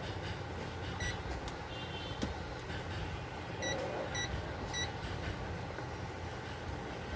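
Short electronic beeps from a digital multimeter during resistance checks on the TV board: one about a second in, then three about half a second apart. A steady hum of background noise runs underneath.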